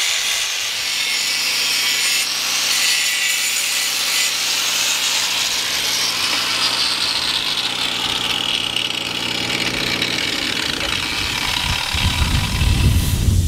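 Power grinder grinding steel, its whine falling in pitch partway through, with a heavier low rumble near the end. It is grinding out a leaking weld seam to expose the pinhole leak before re-welding.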